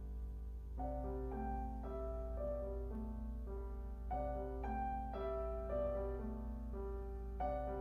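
Background music: a gentle piano melody of slow, evenly spaced notes over a steady low hum.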